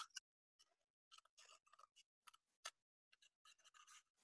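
Faint, irregular snips of scissors cutting a cardboard toilet roll tube, with one slightly louder snip about two and a half seconds in.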